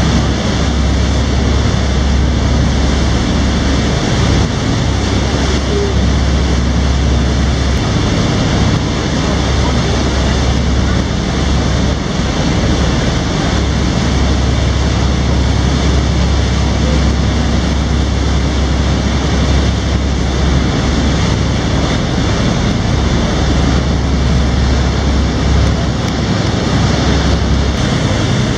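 Motor boat under way: steady engine drone with a low rumble and water rushing along the hull, mixed with wind noise on the microphone. The rumble dips briefly a few times.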